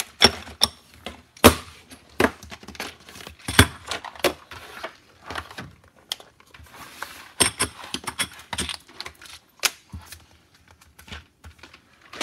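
Loaded brass cartridges clinking and rattling against each other and against metal and plastic loading trays as they are handled and packed: an irregular clatter of sharp metallic clicks.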